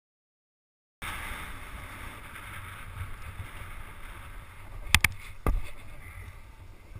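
After about a second of silence, a snowboard slides over packed snow with a steady rushing noise and wind on the microphone, and three sharp knocks come about four to four and a half seconds in.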